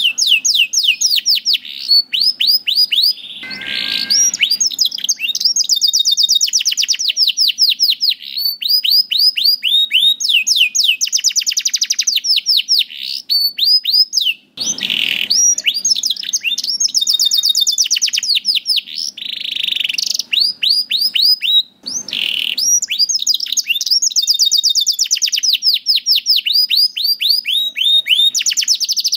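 Canary in full song: long, fast trills of repeated down-slurred notes, changing from one trill to the next every second or two, with a few brief breaks.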